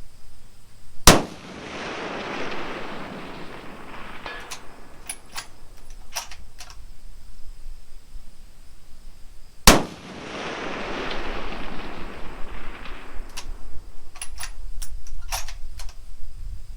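Two rifle shots about eight and a half seconds apart, each followed by an echo rolling away over a few seconds. Between and after the shots come a few short, sharp clicks.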